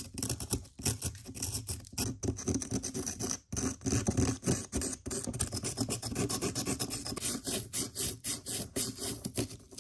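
A small chisel scraping and chipping at a toy dig-kit block in rapid, repeated rasping strokes, digging the hidden gem out.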